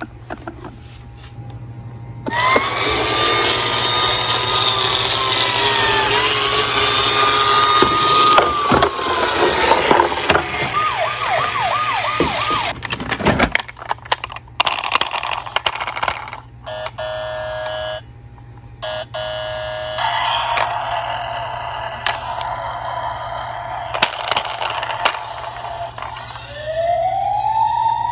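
Battery-powered toy police cars' electronic siren sound effects: a wail rising and falling, switching to a fast yelp and cutting off about halfway through. Then come other electronic tones and plastic handling clicks, and near the end another siren starts with a rising sweep.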